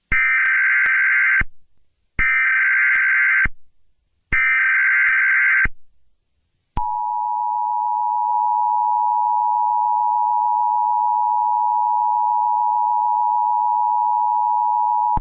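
Emergency Alert System SAME header: three identical warbling digital data bursts of about a second and a half each, followed from about seven seconds in by the steady two-tone EAS attention signal (853 and 960 Hz) held for roughly eight seconds, the signal that a new alert message is about to be read.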